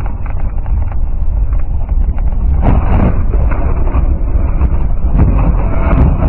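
A car skidding off the road through snow, heard from inside: a loud low rumble with a steady stream of knocks and rattles, heaviest about three seconds in.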